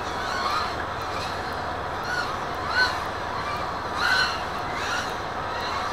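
Racing quadcopters' motors and propellers whining in short swoops that rise and fall in pitch with the throttle, over a steady background hiss. The louder swoops come about three and four seconds in.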